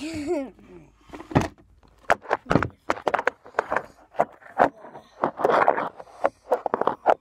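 Close handling noise: an irregular run of sharp knocks and clacks with rubbing and rustling, as a phone is gripped and moved about by hand, with a longer rustling stretch about five seconds in.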